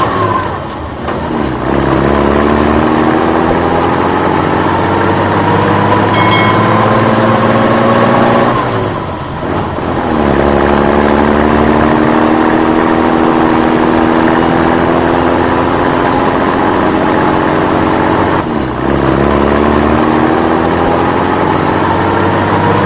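Truck engine sound, accelerating: the engine note climbs slowly in pitch, drops back sharply and climbs again, twice, in a repeating cycle of about nine seconds.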